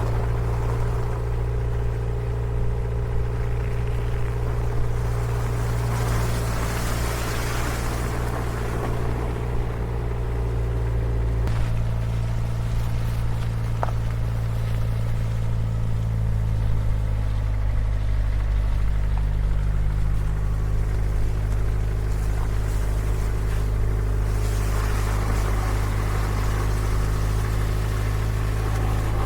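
Four-wheel-drive truck's engine running steadily on the move, with a low drone. The engine note changes about 11 seconds in and again shifts a little later. Tyre and road hiss swells twice.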